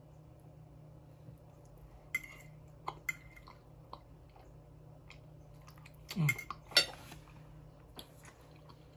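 Metal fork clinking and scraping against a ceramic dinner plate while scooping food, a few sharp clinks about two to three seconds in. A louder burst of clatter comes about seven seconds in.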